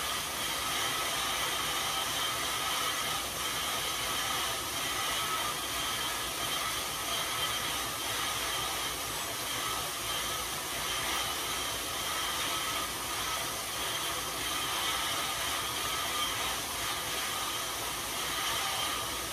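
Cervelo road bike spinning hard on InsideRide rollers: a steady whir of tyres on the roller drums together with the chain and drivetrain, held at an even level through a hard zone-five effort.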